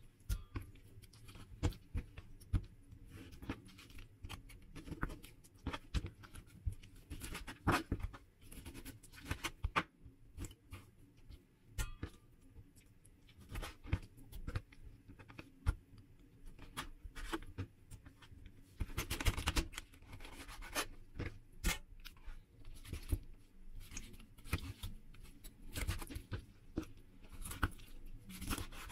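Kitchen knife cutting raw chicken into pieces on a wooden cutting board: irregular sharp knocks of the blade against the board, with quieter handling of the meat in between.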